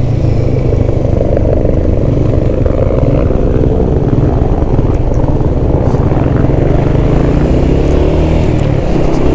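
125 cc motorcycle engine running steadily while riding, heard from on the bike, its pitch rising near the end as it speeds up.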